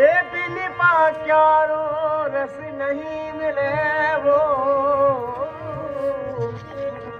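Rajasthani folk singing: a man's voice swoops up and holds one long, wavering note over sustained harmonium chords. The voice fades about six seconds in.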